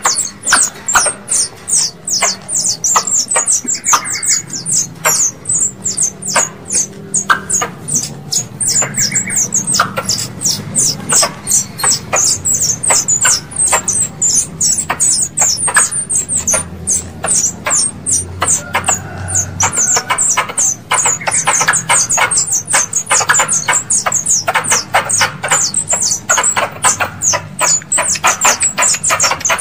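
Squirrel lure call: a continuous run of sharp, high chirps, each falling in pitch, about three or four a second without a break.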